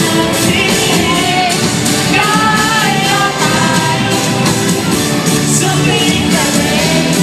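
Loud rock-style music with a singing voice.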